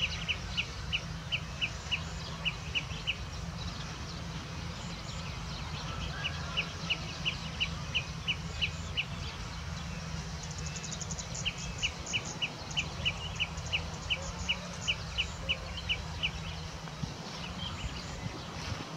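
A bird calling long runs of short, evenly spaced high notes, about three a second, in three bouts that end about three seconds in, between about six and nine seconds, and from about eleven and a half to sixteen seconds. A steady low outdoor rumble runs underneath.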